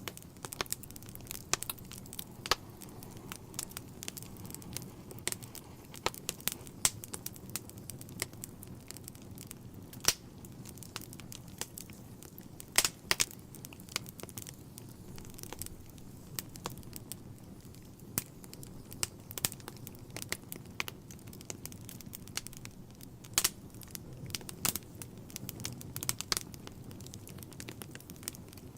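Wood fire burning in a fireplace: logs crackling with irregular sharp pops and snaps, some much louder than others, over a steady low background of flame noise.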